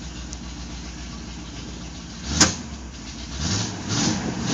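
1977 Ford F-350's V8 engine idling, heard from inside the cab. About halfway through there is one sharp click, and near the end the engine sound starts to rise and fall in rhythmic surges about twice a second.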